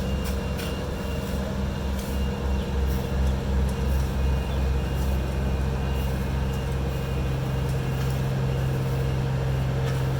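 Heavy diesel road-paving machinery running steadily, a low hum that pulses for a couple of seconds about a third of the way in, with scattered light clicks.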